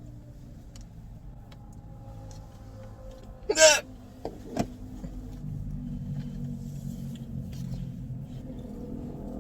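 A girl's loud hiccup about three and a half seconds in, a short sharp voiced 'hic', followed by two fainter short sounds about a second later, over a steady low rumble.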